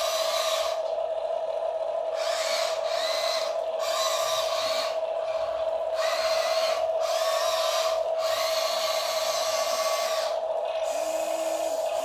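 Small electric motors of a Huina RC excavator whining as the arm and bucket are worked: a steady hum runs underneath, and a higher whine stops and starts every second or so. Near the end a lower motor note joins in.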